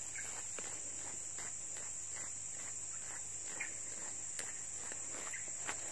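Steady high-pitched insect chorus droning without a break, with a few faint ticks.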